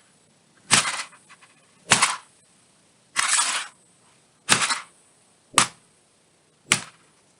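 Sledgehammer striking an iPad: six sharp cracking blows about a second apart, the third a longer crunch.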